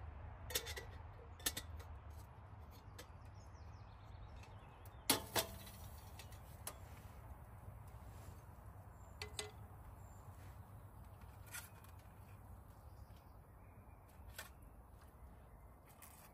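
Scattered sharp knocks and clicks at irregular intervals, the loudest two close together about five seconds in, over a faint low rumble.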